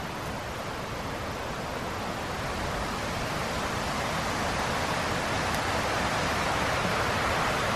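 Steady rushing noise with no distinct events, growing slowly louder toward the end.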